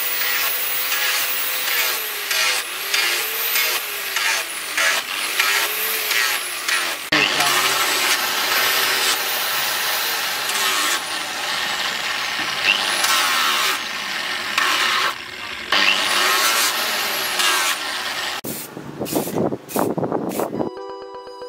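Electric angle grinder with a sanding disc whining, its pitch dipping each time the disc is pressed into the work and rising again as it is eased off, first on the wooden knife handle and then on the steel blade. Near the end, a few short spray bursts.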